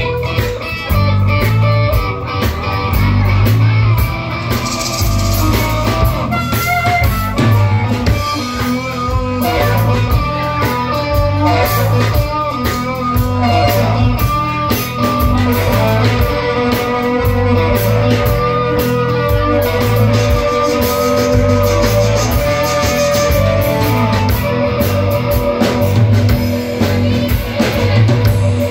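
Live rock band playing an instrumental passage: electric guitars, bass and drum kit with a harmonica, on a steady beat.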